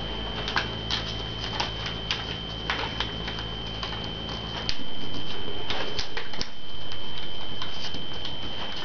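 Origami paper being folded and creased by hand: irregular crinkles and small crackling clicks. A steady high-pitched whine runs underneath, and the background gets louder about halfway through.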